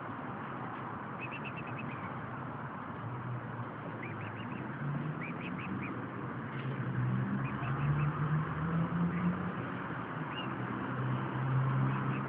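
Mute swan cygnets peeping: short runs of thin, high calls every few seconds over steady background noise. A low droning hum comes in a few seconds in and grows louder in the second half.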